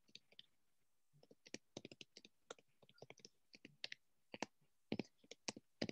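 Faint typing on a computer keyboard: irregular key clicks, several a second, starting about a second in.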